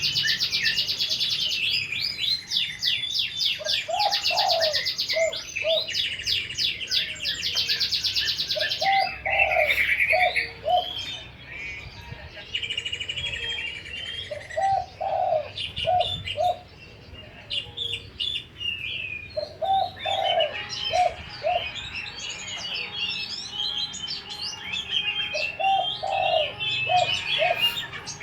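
Spotted dove (tekukur) cooing a short low phrase of about four notes, repeated every five or six seconds. Behind it runs a busy chorus of high chirping and rapid trilling from other small birds, loudest in the first third.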